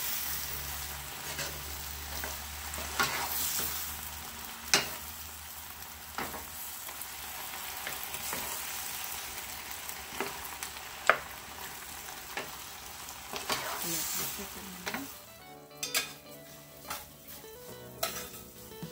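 Shrimp and chopped vegetables sizzling in a frying pan as they are stirred with a wooden spoon, with sharp knocks of the spoon against the pan every second or two. Background music comes in near the end.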